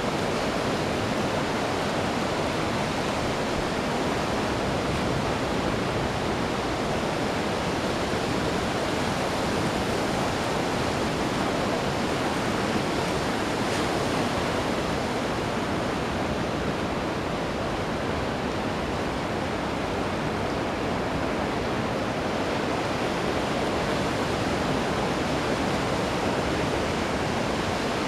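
Ocean surf breaking on a beach: a steady, even rush of waves with no single wave standing out.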